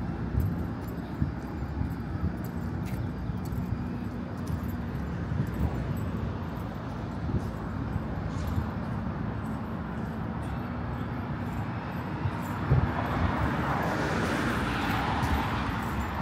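City street ambience dominated by road traffic: a steady low engine hum, a sharp thump about two-thirds of the way through, and a vehicle rushing past near the end.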